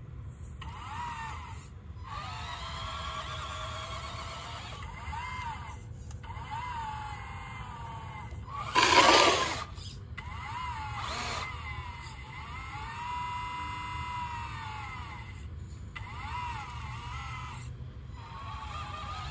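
Electric motors of a 1:14 scale RC Caterpillar 988 wheel loader whining, speeding up and slowing down in repeated spells of one to three seconds with short pauses between. A short, loud rushing noise stands out about nine seconds in.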